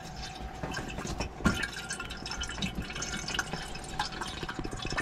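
Water dripping and trickling, with scattered small clicks and one louder knock about a second and a half in, over a faint steady hum.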